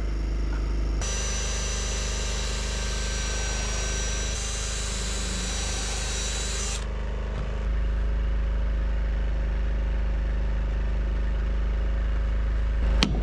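A steady mechanical hum, like a motor running, that changes character abruptly about a second in and again around seven seconds in.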